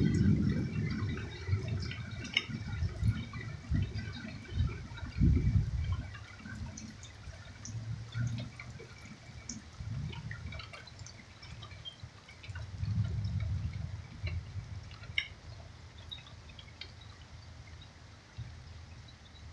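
Thunder rumbling in deep, rolling swells, loudest at the start and again about two-thirds of the way through. Scattered drips of rainwater tick over it.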